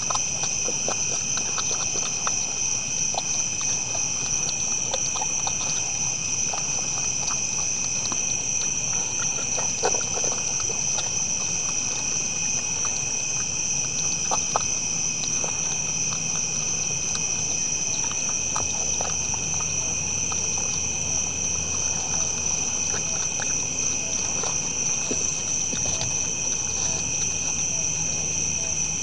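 Steady chorus of night insects, a high two-toned drone, with irregular crunching and clicking of whitetail deer eating feed from bowls close to the microphone.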